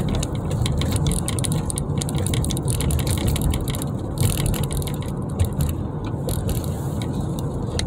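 Steady road and engine rumble inside a moving car's cabin, with frequent small clicks and rattles over it.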